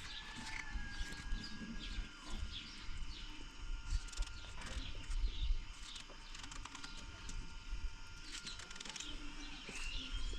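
Small birds chirping, with many quick short calls, a longer whistled note in the first two seconds and another arched note near the end, over a low background rumble.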